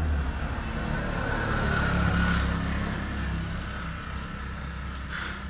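A motor vehicle's engine droning, growing louder about two seconds in and then easing off.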